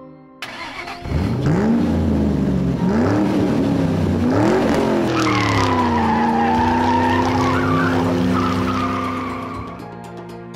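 Race car engine sound effect revving up and down several times, then holding a steady note under a long tyre screech that fades out near the end.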